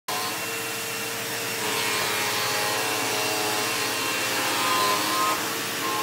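Electric vacuum cleaner running steadily, a constant whine over the rush of its motor and air.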